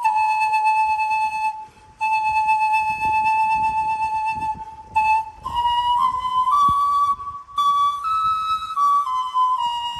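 Pan flute playing a slow, breathy melody: two long held notes, then a run of shorter notes stepping up in pitch and back down.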